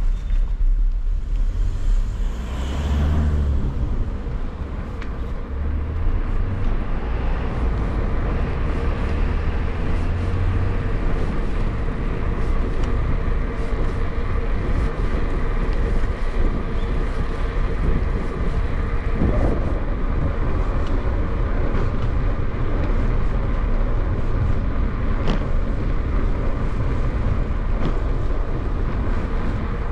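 Street traffic and riding noise from a bicycle moving through city streets: a steady low rumble, with a vehicle going by about two to three seconds in and a few sharp clicks later on.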